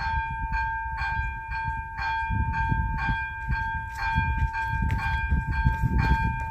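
Railway level crossing warning bell ringing at about two strikes a second, each strike ringing on into the next, over an uneven low rumble.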